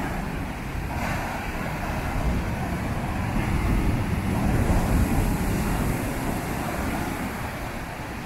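Heavy storm surf on the Adriatic Sea breaking on a beach: a continuous rush of crashing waves and foam, swelling louder about halfway through as a big wave breaks.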